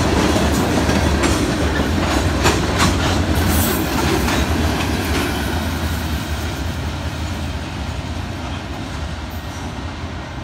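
Union Pacific freight train of covered hopper cars rolling past, the wheels clacking over the rail joints for the first few seconds. The sound fades steadily as the last car goes by and the train draws away.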